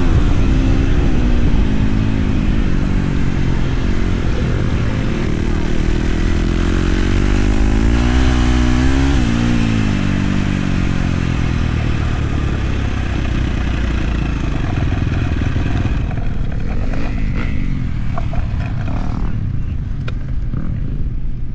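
Flat-track motorcycle engine being ridden, its pitch rising under throttle and dropping off several times, with a clear climb and fall about eight seconds in; it becomes quieter and rougher in the last few seconds, with a few clicks.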